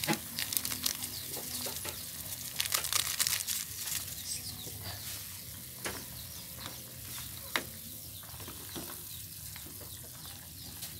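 Pot of chicken soup boiling hard on a gas stove, bubbling and crackling steadily, with a few sharp clinks of a metal ladle against the aluminium pot as it is stirred.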